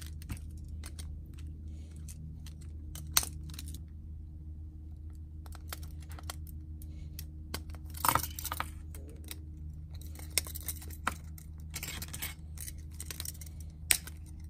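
Split ring pliers, stiff steel split rings and treble hooks clicking and clinking as hooks are fitted onto hard plastic fishing lures: scattered sharp metallic clicks, a few louder ones, coming more often in the last few seconds, over a steady low hum.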